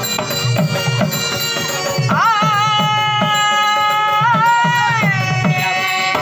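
Stage-drama music: hand drums beating a steady rhythm, with a high melodic note that slides up about two seconds in, is held for about three seconds, then falls away.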